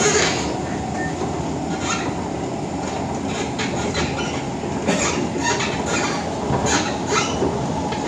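Running noise of an SMRT C151 (Kawasaki) metro train heard from inside the carriage: a steady rumble of wheels on rail, with brief sharp high-pitched sounds popping up irregularly, about one a second or less.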